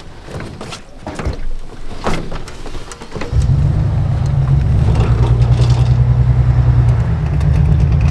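Some knocks and clatter, then about three seconds in an engine starts and runs steadily with a low, fast, even pulse.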